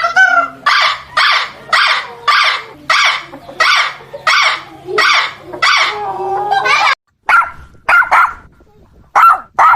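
An animal giving a rapid run of barking yelps, about two a second, then after a brief pause a few shorter yelps, some in quick pairs.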